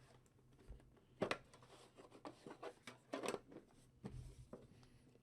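Faint handling noises of trading cards and their packaging: a few soft clicks and rustles, loudest about a second in and about three seconds in.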